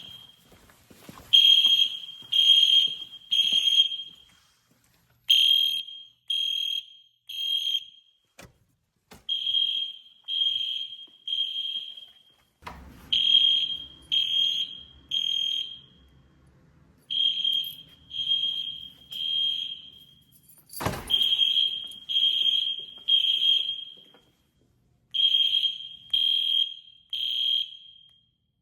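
Edwards EST Genesis horn/strobes sounding the temporal-three evacuation pattern: three short, loud horn blasts, a pause, then three again, repeating throughout. A single sharp thump cuts in about two-thirds of the way through.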